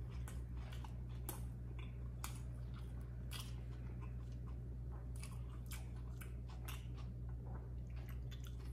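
A man chewing a mouthful of chicken burger with a soft bun: a string of wet mouth clicks and smacks over a steady low hum.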